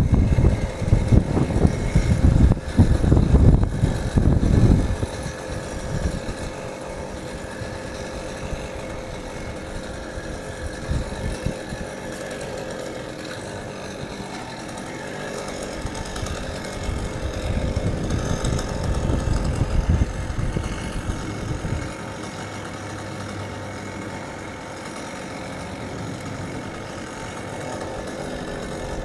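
A small engine runs steadily, with no revving, under heavy wind buffeting on the microphone. The buffeting is strongest in the first five seconds and again in a stretch about two-thirds of the way in.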